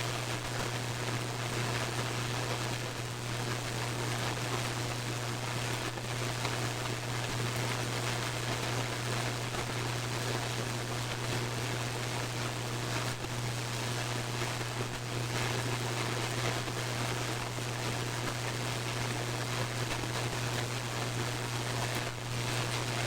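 Radio receiver static: a steady hiss over a constant low hum, with a few faint, brief crackles from lightning.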